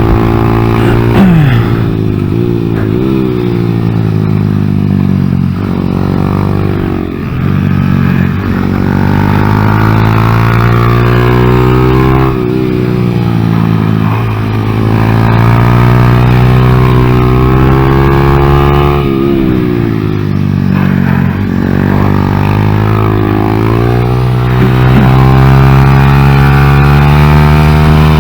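Honda Grom's 125 cc single-cylinder engine running hard at close range, its pitch climbing under acceleration and falling off again over and over. It drops sharply twice, about twelve and nineteen seconds in.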